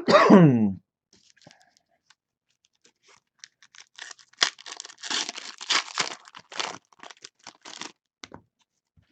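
Foil trading-card pack wrappers tearing and crinkling as packs are ripped open, a run of short crackling rustles with cards being handled. A brief voice sound falls away in the first second.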